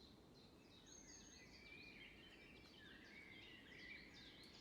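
Near silence with faint birdsong in the background: a steady run of quick, high chirps from small birds over low hiss.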